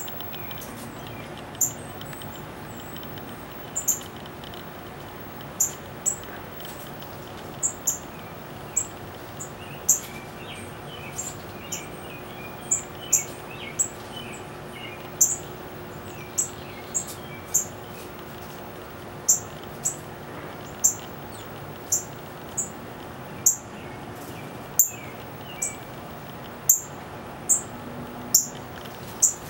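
Northern cardinal giving sharp, high chip notes over and over, about one a second at an uneven pace.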